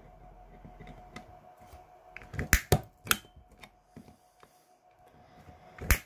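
Punch-down tool seating Cat5e conductors into an RJ45 socket's insulation-displacement terminals, with its cutter trimming the ends. Sharp snaps come in a cluster about two and a half to three seconds in and once more near the end, over light handling clicks.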